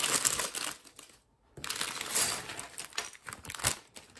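Thin plastic bag of Lego bricks crinkling as it is pulled open, with a short pause about a second in, then more crinkling and light clicks of the plastic pieces tumbling out onto the table.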